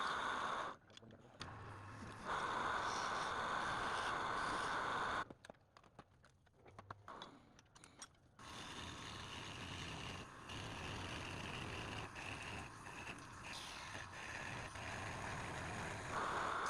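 Wood lathe turning, with a turning tool cutting the spinning wood in several passes that start and stop abruptly. About five seconds in there is a pause of a few seconds with a few small knocks, then a quieter, steadier cut, and it grows loud again near the end.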